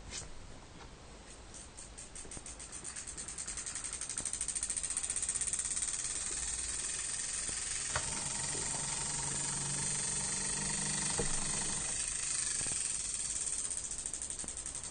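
Small electromagnet engine model (a Froment-type motor with coils, ferrite magnets and reed switches) starting up. It ticks faster and faster over the first few seconds until the ticks merge into a steady buzzing whir as the wheel comes up to speed. There is a sharp click about eight seconds in.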